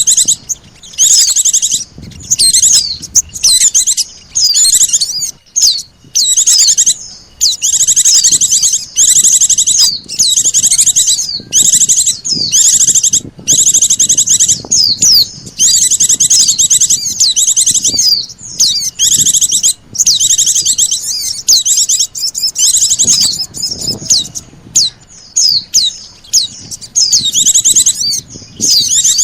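Bird-lure recording of white-eyes and sunbirds: rapid, high-pitched chirping and twittering in dense bursts, each up to about a second and a half long, with brief gaps between them.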